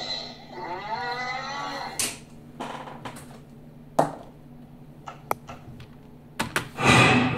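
A drawn-out, moo-like sound effect that rises then falls in pitch, played back through computer speakers, followed by a few sharp clicks.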